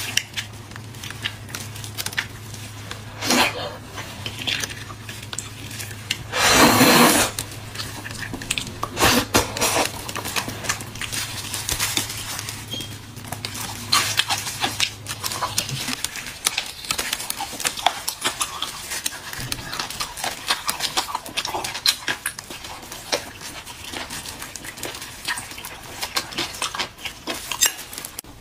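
Close-up eating sounds: gloved hands crinkling and clicking as they handle marrow bones, with a loud sucking slurp about seven seconds in and smaller mouth noises throughout. A low steady hum cuts out about halfway through.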